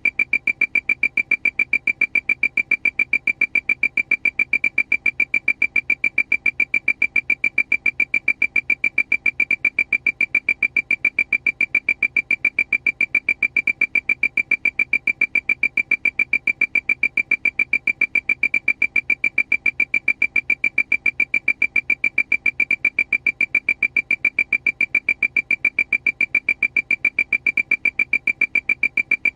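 Aircraft alarm: a high beep repeating evenly and rapidly, several times a second, at a constant pitch and level.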